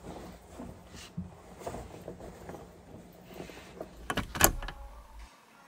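Clothes rustling and being handled as a person changes, with a few sharp clacks at the rack about four seconds in. Faint background music comes in near the end.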